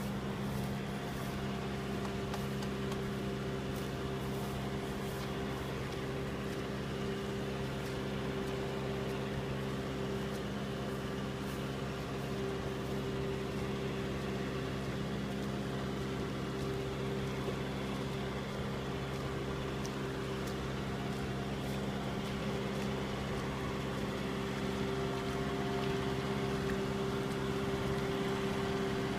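Kubota M6040 tractor's four-cylinder diesel engine running steadily under load as it drives through deep mud, an even low drone that grows slightly louder near the end.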